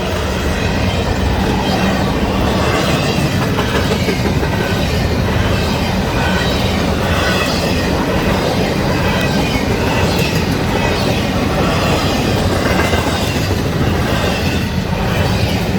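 Freight train I143 passing close by: a steady rumble of rolling railcars, with wheel clatter and squeal on the rails.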